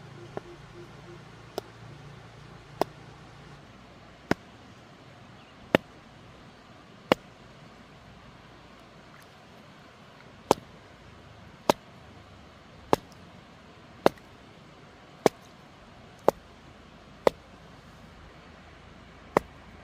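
A rock striking the top of a bamboo stake, driving it into a streambed: sharp knocks about once a second, with a pause of about three seconds midway.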